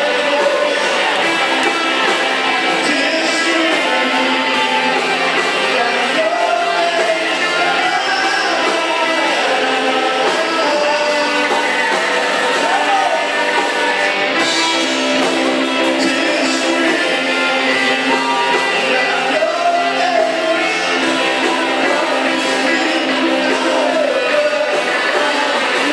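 Live band playing a rock song, with guitar and a singing voice.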